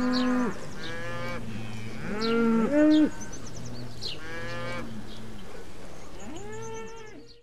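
Several cattle mooing in a string of long calls that rise, hold and fall in pitch, some overlapping; the loudest pair comes about two to three seconds in. The sound cuts off suddenly at the end.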